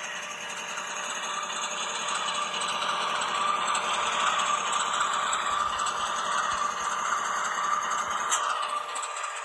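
HO scale model locomotive (ScaleTrains GE AC4400CW) running along the track: a steady motor whine with wheels rattling on the rails. It grows louder toward the middle and fades away near the end.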